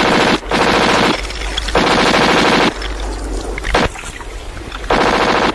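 Several long bursts of rapid machine-gun fire, with a quieter lull in the middle broken by a couple of single shots.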